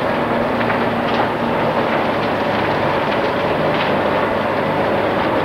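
Steady din of running engines, with a few faint crackles through it.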